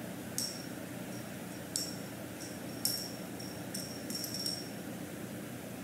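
Small bell on a cat wand toy jingling in short, high tinkles, about six times, as the toy is dangled and bounced, over a steady low hum of a fan.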